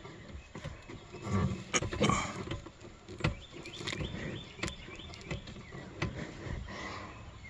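Hands fumbling under a pickup's dashboard, giving a few scattered clicks and rustles, with birds chirping faintly in the background.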